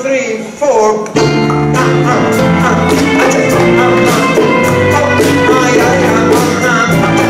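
Live band music: an acoustic guitar, a bass guitar and hand drums (a djembe-type drum and congas) play an upbeat Latin-style groove with regular drum strikes. It starts abruptly about a second in, cutting off a short passage of sliding bowed-string notes.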